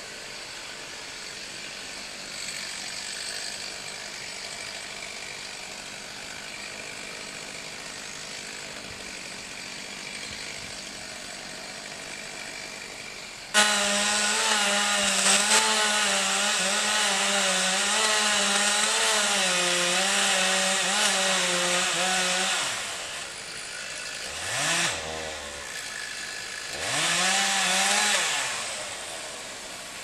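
Two-stroke chainsaw: after a low, steady stretch it jumps suddenly to full throttle about halfway through. It runs hard, its pitch wavering under load, for about nine seconds while cutting the felling notch into the trunk. Then it drops back and is revved up twice briefly.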